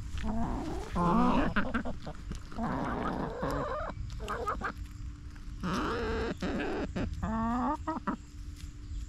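Backyard chickens clucking as they peck at feed: a string of short calls from several birds, some rising or falling in pitch, with brief gaps between them.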